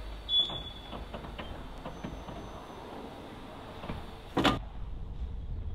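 Wooden passenger carriage of a slow steam train rolling close past: a low rumble from the wheels on the track with scattered clanks, a short high squeal near the start and one loud sharp clunk about four and a half seconds in.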